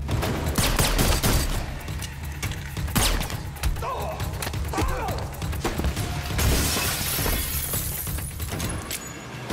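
Movie gunfight sound effects: pistol shots and hits during a struggle, then glass shattering for a couple of seconds in the second half, over a low, dark music score.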